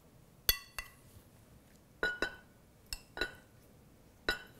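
Metal spoon clinking against a ceramic serving bowl as salad is scraped out onto a plate: about six sharp clinks at irregular intervals, some ringing briefly.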